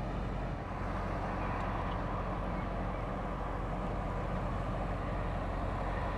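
Narrowboat engine running steadily as the boat cruises along the river, a constant low drone with a faint whine above it.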